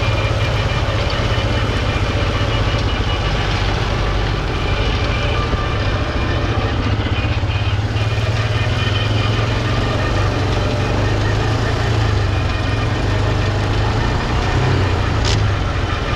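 Engines running steadily with a low drone: a Kawasaki quad bike carrying the camera and a Renault 651 tractor driving a drum mower through grass.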